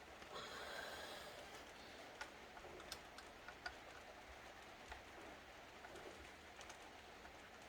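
Faint, scattered light clicks and ticks of small parts and screws being handled while a laptop is taken apart, with a soft rustle in the first second.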